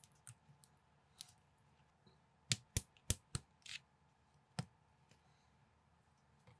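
Small plastic building bricks being handled and snapped together, giving scattered sharp clicks with a quick run of four or five louder ones a few seconds in.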